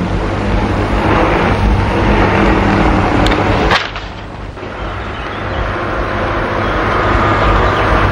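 A loud, steady noise that cuts off sharply about four seconds in. Then a car engine running, growing steadily louder as the car drives along the road.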